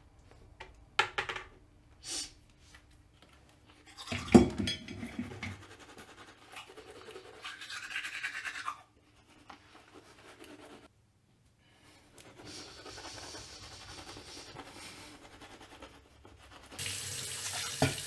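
Manual toothbrush scrubbing teeth in stretches of quick strokes, with a few clicks early on and a loud thump about four seconds in. Near the end a tap runs loudly as water is splashed.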